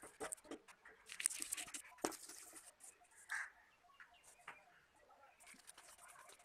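Scattered light clicks and taps with brief scraping, a denser run of scraping about a second in: small objects being handled.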